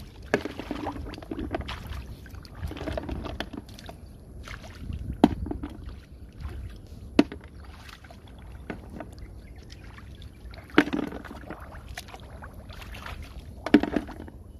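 Shallow muddy water sloshing and splashing as hands grope through it and legs wade. Four sharp knocks stand out, spaced a few seconds apart.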